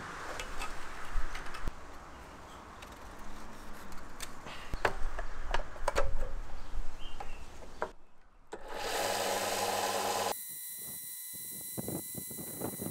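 Knocks and clatter as a small benchtop belt-and-disc sander is handled and adjusted, then the sander's electric motor running with a steady hum and whine from about nine seconds in, with short scrapes of a wooden spoon being sanded against the narrow belt near the end.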